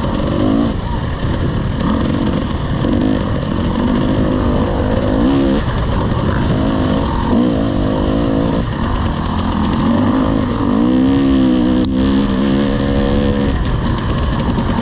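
Dirt bike engine worked hard through trail riding, its pitch repeatedly climbing under throttle and dropping as it shifts or backs off, over a steady rush of wind and ground noise. A single sharp tick comes about twelve seconds in.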